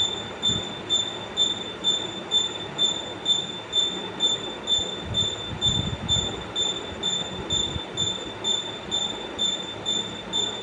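A rhythmic mechanical sound: a high-pitched squeal pulsing about twice a second, with a low thump on each beat, steady throughout.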